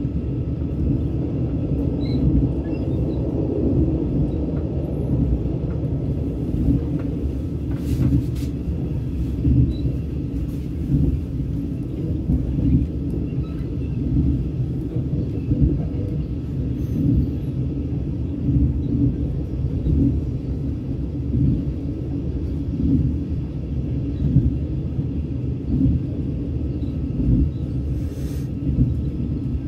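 Steady low rumble of a train running at speed, heard from inside a passenger coach.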